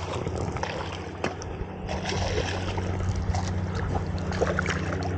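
A hooked bass splashing at the water's surface as it is brought to the bank and scooped into a landing net, heard as scattered irregular splashes and knocks over a steady low hum.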